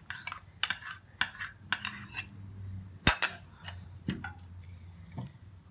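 Metal spoon scraping and tapping against a bowl as yogurt is scooped out and knocked off onto the food, in several short clinks, with one sharper, louder knock about three seconds in.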